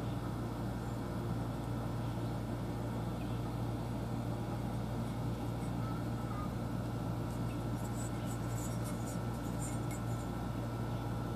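A steady low mechanical hum over a constant background rush, with a few faint, light clicks about two-thirds of the way through.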